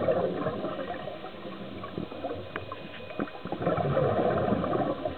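Scuba diver's regulator exhaust heard underwater: a burst of bubbling exhalation at the start and another about three and a half seconds in, with quieter underwater noise between.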